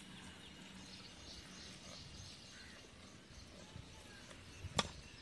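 A single sharp metallic clink near the end, a steel spoon knocking against a steel pot as rice flour is stirred with boiling water, over a faint outdoor background with light bird chirps.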